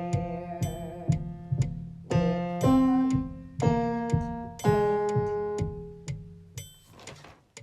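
Electric piano or keyboard playing a few struck, sustained chords that ring and fade away, over a steady ticking click like a metronome. The chords die out near the end, leaving only the clicks.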